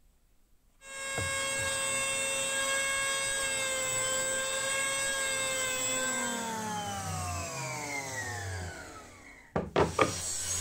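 Benchtop jointer switched on about a second in, its motor running with a steady whine while a wooden handle blank is fed over it, then switched off, its pitch falling as it spins down from about six seconds. Near the end a table saw starts with a few loud sharp bangs.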